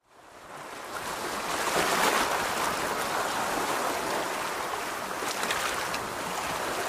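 Waves washing on a shore: a steady rush of surf that fades in over the first couple of seconds and swells about two seconds in.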